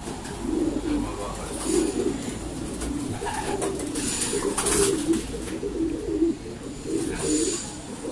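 A loft full of racing pigeons cooing, many low warbling coos overlapping continuously.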